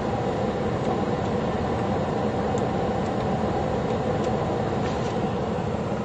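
Mi-8-type military helicopter sitting on the ground with its engines running and main rotor turning: a steady, unchanging noise.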